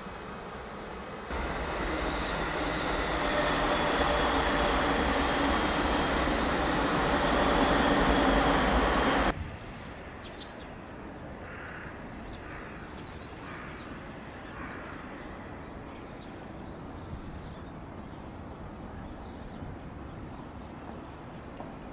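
Container freight train rolling past, a loud steady rush of wheels on rails that starts about a second in and cuts off abruptly after about eight seconds. What follows is much quieter, with a few faint high chirps.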